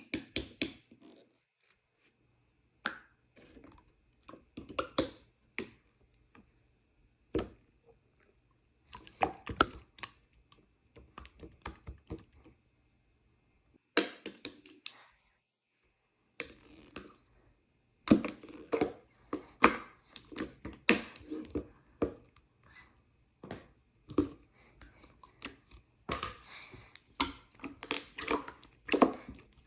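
Marbled slime being squished and pressed by hand, giving irregular runs of wet clicks, crackles and small pops, with short quiet pauses between handfuls.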